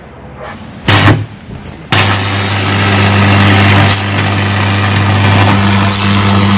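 An open electric arc from 220 V mains burning off a bundle of welding electrodes: a brief flash of arc about a second in, then the arc catches just before two seconds in and burns with a loud, steady deep buzz and heavy crackling.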